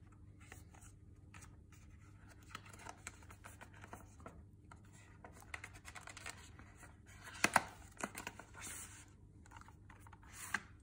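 A cardboard phone-case box being handled and opened by hand: card and tissue paper scraping, rustling and crinkling, with small clicks throughout and a couple of sharp louder clicks about seven and a half seconds in.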